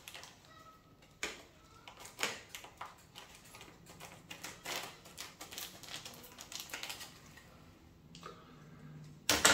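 Plastic vacuum-seal bag crinkling and crackling in irregular small taps as it is slit open and handled on a cutting board, with one sharp, louder knock near the end.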